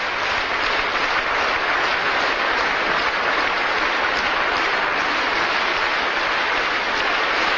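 Large congress audience applauding, a steady, even clapping from many hands.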